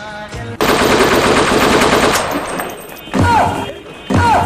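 Recorded machine-gun fire sound effect: a rapid burst that starts abruptly about half a second in and lasts about two seconds, then two single heavier shots, each with a short falling whine, near the end.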